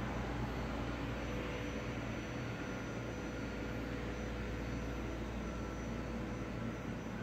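Steady low rumble and hiss with a faint constant tone, unchanging throughout, with no distinct events.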